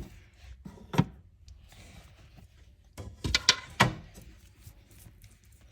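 Sharp knocks and clicks of toy dolls being handled against a dollhouse: one about a second in, then a quick cluster a little past halfway, over a faint background.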